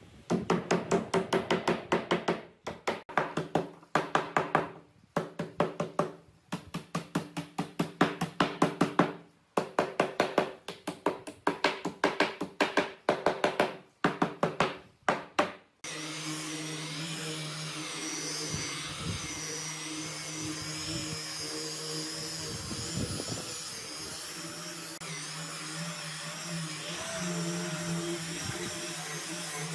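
Rapid runs of repeated mechanical strikes, several a second with short pauses between runs. After about 16 seconds they give way to a power tool's motor running steadily with a hum.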